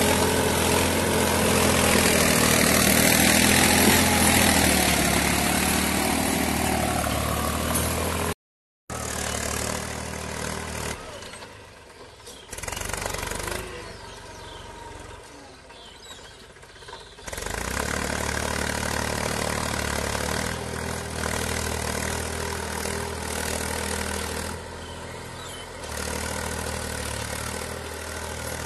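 Mahindra 275 DI XP Plus tractor's three-cylinder diesel engine running steadily under load as it pulls a cultivator. It is loud at first. After a brief dropout about eight seconds in, it is much quieter and fades and returns.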